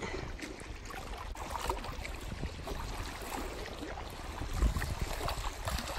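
Calm sea lapping gently at the shoreline, with a low rumble of wind on the microphone.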